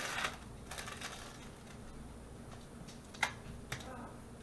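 Thin plastic wrappers on individually wrapped processed cheese slices crinkling as they are peeled off, with two short sharp clicks a little after three seconds in.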